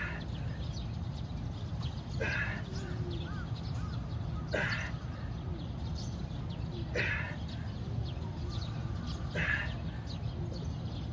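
Repetitions of a bodyweight core exercise on a playground swing, with a short rasping sound once per repetition, about every two and a half seconds, five times. A steady low background rumble runs underneath.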